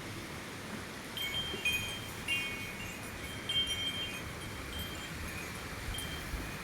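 Wind chimes ringing in a gust of wind, several high tones chiming on and off from about a second in, over a steady hiss of rain and wind in the trees.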